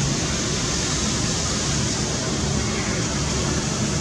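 Indian Navy Sea King helicopter hovering low, its twin turbines and rotors giving a steady heavy noise.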